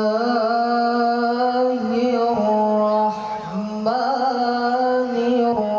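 Slow chant for a seated Acehnese traditional dance, sung by boys in long held notes on a steady pitch that steps up or down a few times.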